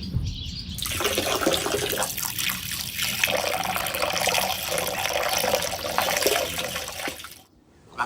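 Running, splashing water with many small crackles. It starts about a second in and cuts off suddenly shortly before the end.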